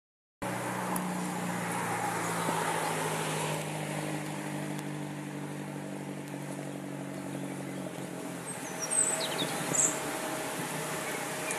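Steady engine hum of road traffic with a haze of road and wind noise, starting suddenly after a brief silence. A couple of short, high bird chirps about nine seconds in.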